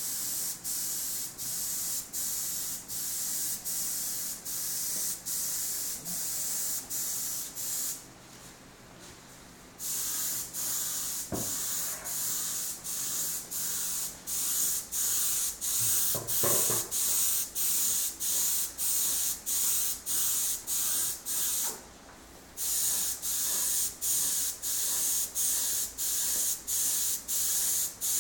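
Gravity-feed air spray gun hissing as automotive paint is sprayed onto lathe castings, in regular short pulses about one and a half a second. The hiss stops for about two seconds around a third of the way in, and briefly again later.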